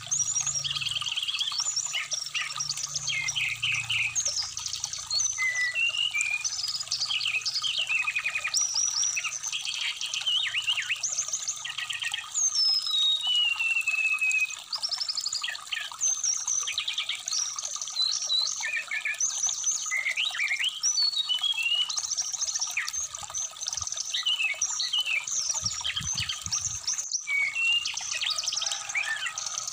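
Brown-chested jungle flycatcher singing a fast, unbroken run of short chirps, trills and whistled slides, over trickling stream water.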